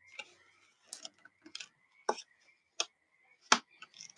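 Plastic clips and the plastic bottom cover of a laptop clicking and snapping as a plastic card is worked along the seam to pry it open: a string of sharp, irregular clicks, about half a dozen.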